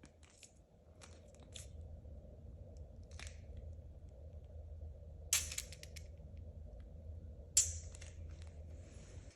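Tire plug insertion tool being worked into a punctured motorcycle tire, under a low steady hum. It makes faint clicks, then two short, sharp crunching scrapes about five and seven and a half seconds in.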